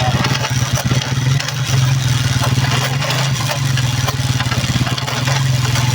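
Vento 150cc motorcycle engine running steadily in fourth gear, with the gearbox noise that is worst in this gear. The mechanic suspects a broken third or fourth gear.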